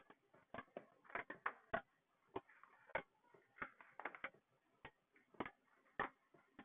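Faint, uneven clicking and tapping, about two or three sharp clicks a second.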